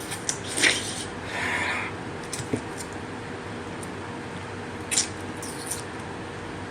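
A plastic Rubik's cube being handled: a few short clacks and brief rubbing, scraping sounds spread out over several seconds.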